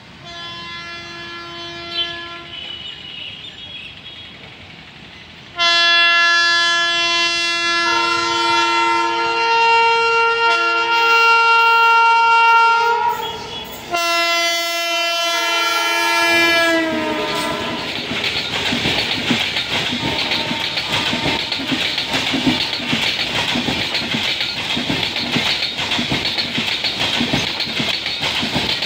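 Tejas Express locomotive horn: a fainter blast at first, then a long loud blast and a second blast whose pitch drops as the train passes. The express then rushes by with wheels clattering over the rail joints.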